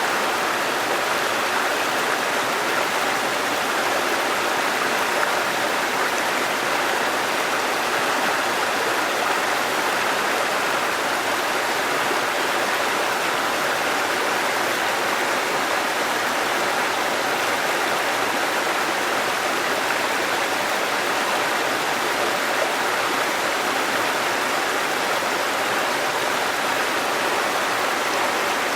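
Waterfall: water falling and rushing in a steady, even hiss that holds constant throughout.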